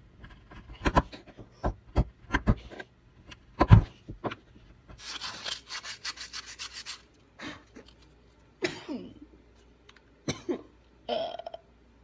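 A small hand gouge digging and scraping into the bowl of a white oak spoon in a string of short, sharp clicks and scrapes. About five seconds in comes a couple of seconds of quick, rasping rubbing strokes on the wood.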